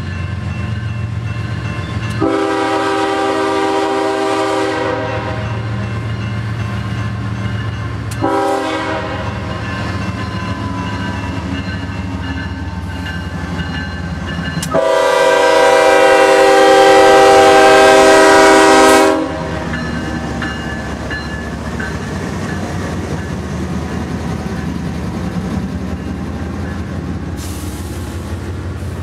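Canadian Pacific GE AC4400CW diesel locomotive leading a freight train, sounding its multi-tone horn three times: a long blast about two seconds in, a short one, then a longer, louder blast past the middle. A steady diesel engine rumble runs underneath as the train approaches and passes close by.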